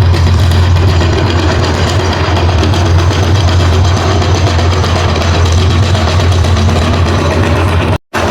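Electric meat grinder running steadily with a loud low hum, cutting out for an instant near the end.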